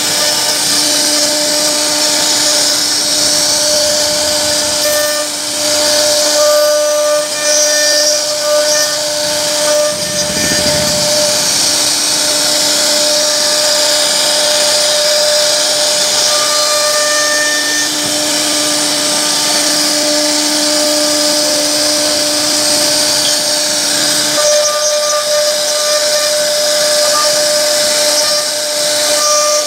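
CNC router spindle whining steadily as its cutting bit carves a wooden door panel, with the hiss of the wood being cut. A lower tone in the whine drops out about 24 seconds in.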